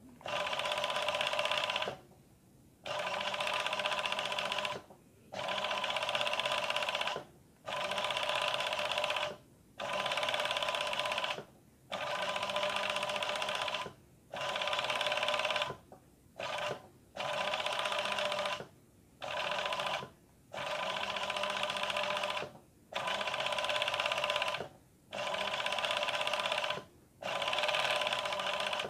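Industrial overlock (picot) machine stitching a zigzag picot edge, running in short steady bursts of about two seconds each with brief stops between them, about fourteen runs in all.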